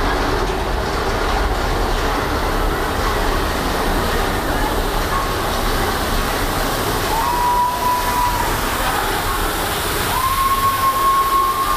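Big Thunder Mountain Railroad mine-train roller coaster running along its track, a steady rumble and rattle heard from aboard the train. Two high held tones sound over it, a short one about seven seconds in and a longer one from about ten seconds.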